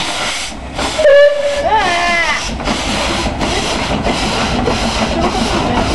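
Steam locomotive Cb113 moving slowly, its exhaust chuffing about twice a second under a steady hiss of escaping steam. About a second in comes a loud steam whistle blast of a bit over a second, bending up and down in pitch as it ends.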